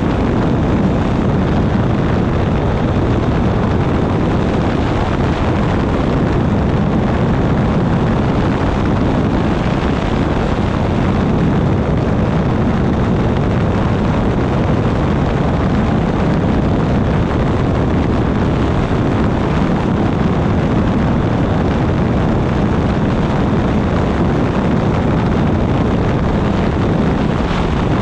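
Steady in-flight noise of an ultralight weight-shift trike: airflow rushing over a wing-mounted microphone, mixed with the drone of the pusher engine, even and unbroken.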